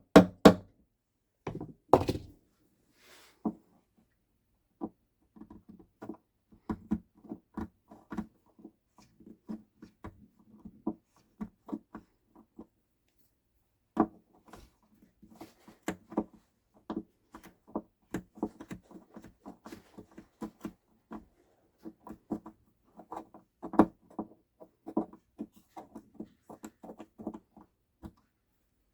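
Light wooden knocks and clicks as an acoustic guitar is handled and worked on, irregular and fairly quick, with a few louder thunks near the start.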